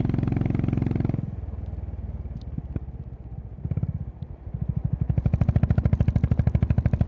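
Honda CB350RS single-cylinder motorcycle engine and exhaust on the move: it pulls under throttle, drops back to a quiet, low thudding about a second in as the throttle is closed, with a few sharp clicks, then picks up again at about four and a half seconds into a steady, evenly spaced exhaust thump.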